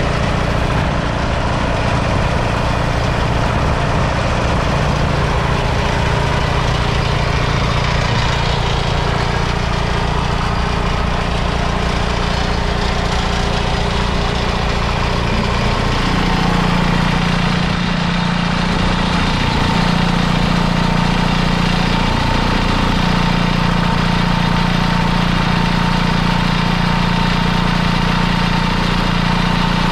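Allis-Chalmers HD5 crawler's two-cylinder two-stroke diesel engine idling steadily, its note shifting and strengthening about halfway through.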